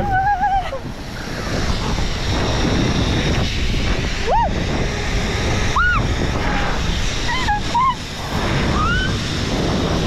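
Wind rushing over the microphone during a zipline ride, a loud steady roar, with a few short high-pitched cries from the rider.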